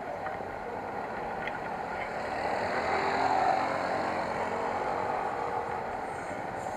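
Motorcycle riding noise: engine and wind rush blending into a steady din that swells a little about halfway through and then eases.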